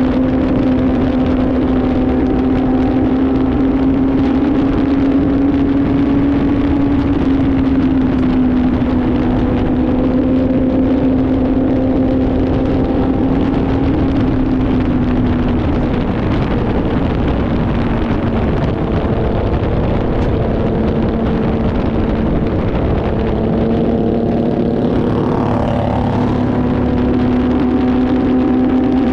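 Motorcycle engine running at cruising speed, heard from the bike itself over a steady rush of wind and road noise. The engine note holds steady, drops away a little past halfway, then picks back up near the end.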